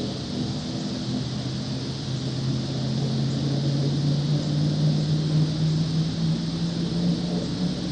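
Truck engine running under load as it pushes through deep floodwater, its note climbing slowly over several seconds, over a steady hiss.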